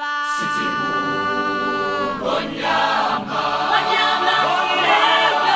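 Background music: sung voices holding long chords, growing fuller about two seconds in.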